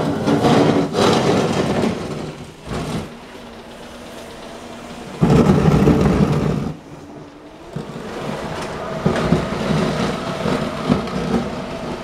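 Battery-powered homemade electric garden tractor ploughing snow. Its motor and drivetrain run under load in surges, loudest for a short spell about five seconds in, while the front blade pushes the snow along the driveway.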